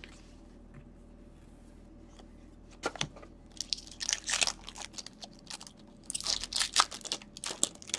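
Wrapper of a 2014-15 SP Authentic hockey card pack being torn open and crinkled, in short crackling bursts that start about three seconds in.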